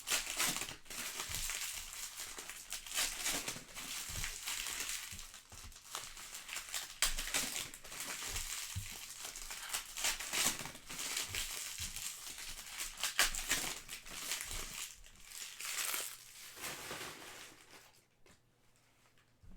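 Plastic trading card packaging being torn open and crinkled by hand, a dense, uneven crackling with louder swells, dying away near the end.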